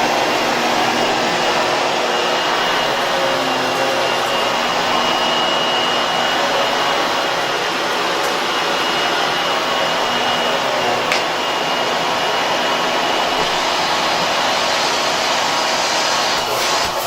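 Hoover Hushtone 15 commercial upright vacuum running steadily on its lowest, quiet suction mode: an even rush of air with a faint high whine.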